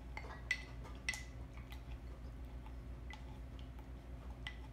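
Bar muddler crushing watermelon chunks and lime in a glass, its end knocking the bottom of the glass in quiet, irregularly spaced clicks, each with a short glassy ring, about half a dozen in all.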